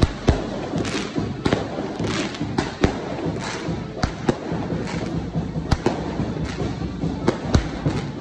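Firecrackers going off in an irregular string of sharp bangs and cracks, over a steady background din.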